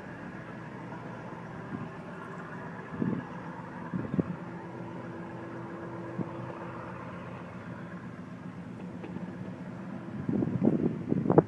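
Commuter boat's engines running with a steady drone as the boat turns away. Wind buffets the microphone in loud gusts near the end.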